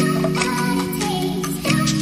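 Background music: sustained chords changing about every second and a half, with a light melody above.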